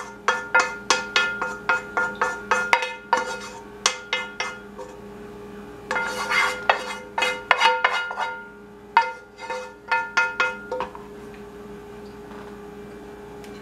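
A metal saucepan being knocked and scraped out over and over, ringing briefly after each knock, as gravy is emptied from it into a plastic mixing bowl. The knocks stop about two-thirds of the way through, leaving a faint steady hum.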